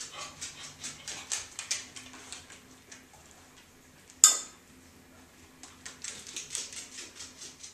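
A dog's nails clicking on a hardwood floor as it runs, with a single sharp metal clink about four seconds in as it works among metal scent articles.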